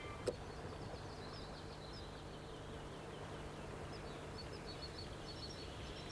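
Faint birdsong: small birds giving short, high chirps, scattered through, over a steady low hum and a single click just after the start.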